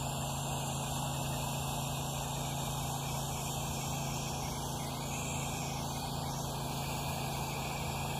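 Pressure washer spray gun spraying a soap mix onto house siding: a steady hiss of spray over an even mechanical hum from the pressure-washer rig.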